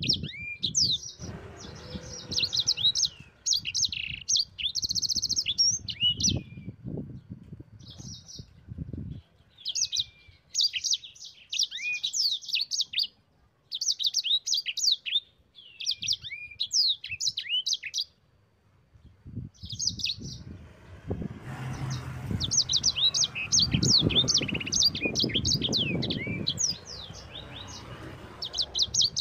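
Sanger songbird singing in fast, high-pitched runs of chirps and trills, phrase after phrase with short breaks between them. A low rumbling noise sits beneath the song for long stretches near the start and again in the second half.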